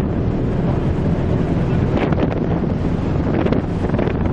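Wind buffeting the microphone over the steady low rumble of an icebreaking ship under way. From about two seconds in, a run of short crackling and crunching sounds as broken drift ice grinds along the hull.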